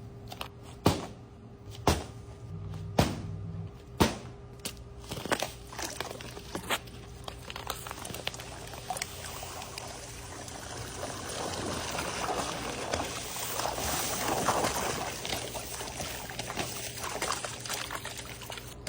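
Water pouring and trickling out of a swimming-pool cleaning bag, swelling to its loudest past the middle. A few sharp knocks, about one a second, come first.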